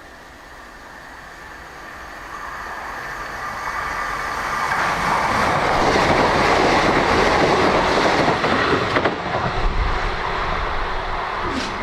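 A train passing close by, wheels clattering on the rail joints, growing louder to a peak a little past the middle and then easing off, with a brief high squeal near the end.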